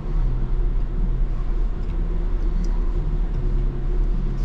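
Electric tram running, heard from inside the passenger cabin: a steady low rumble with a hum from the drive that shifts pitch in small steps.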